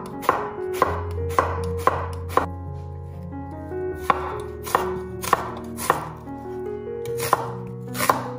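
Chef's knife slicing through eggplant and then half an onion on a wooden cutting board, the blade knocking the board about twice a second in short runs with brief pauses between them.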